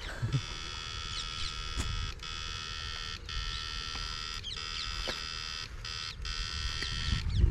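Backpack battery-powered electric fishing unit giving a steady high-pitched buzz while it sends current into the water, breaking off briefly about five times and stopping near the end.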